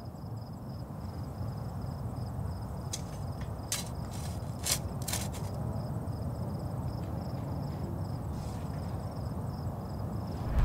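Crickets chirping in steady, evenly spaced pulses over a low, steady background rumble. A few short clicks or rustles come near the middle.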